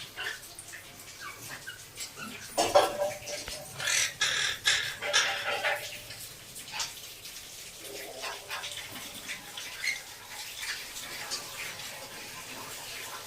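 Pet cockatiels calling: bursts of short, harsh chirps and squawks, loudest a few seconds in, then scattered single chirps.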